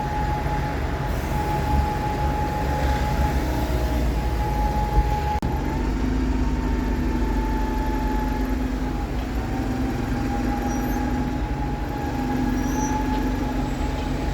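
Bus engines running steadily, a low rumble with a steady hum over it, and a single knock about five seconds in.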